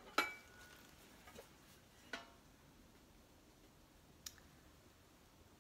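Decorated metal candy tins being picked up and handled: a sharp clink with a short metallic ring, another clink about two seconds in, and a light tick near the end.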